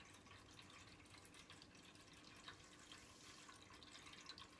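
Near silence: quiet room tone with a faint steady hum and scattered faint ticks.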